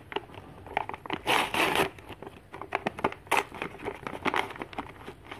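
Sheet of paper crinkling and tearing in irregular crackly bursts as a folded paper bag is pulled open by hand, with a longer tearing rustle about a second in.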